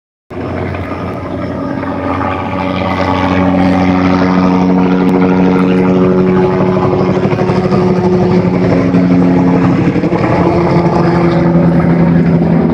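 Light single-rotor police helicopter flying low overhead, its rotor pulsing fast over a steady engine tone. The sound grows louder over the first few seconds as it comes closer, then holds.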